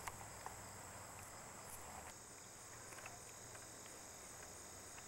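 Faint, steady high-pitched chirring of crickets or similar insects, with a few soft clicks scattered through it.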